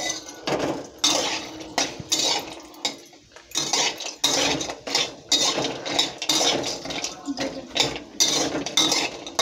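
A metal spatula scrapes and clatters against a metal kadhai, stirring pieces of cinnamon bark frying in a little oil. The strokes come about twice a second, with a short lull around three seconds in.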